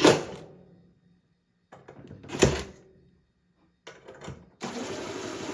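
A power driver's flathead bit slipping in a screw head on a ceiling fan's metal mounting bracket: two sharp clacks about two and a half seconds apart, then a rough grinding noise near the end. The bit is too small for the screw, so it slides around instead of turning it.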